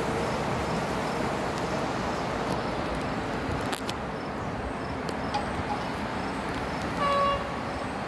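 Steady outdoor background noise with one short, single-note train horn toot about seven seconds in.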